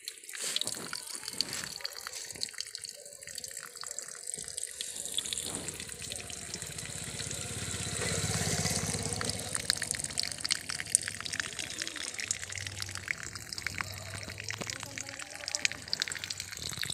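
A stream of water from a small battery-powered motor pump pouring and splashing into a shallow pool of water in a hole in the ground, with many small drips and splashes.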